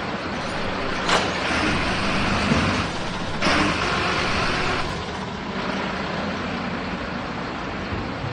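Garbage truck working at the bins: its engine runs steadily, with a sharp clank about a second in, then two hisses of air, each about a second and a half long.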